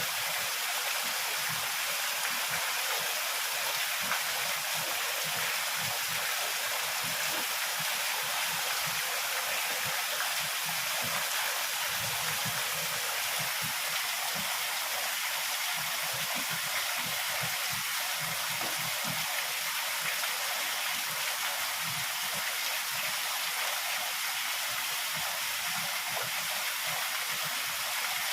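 Heavy rain falling steadily: a dense, even hiss of downpour with no break or change in intensity.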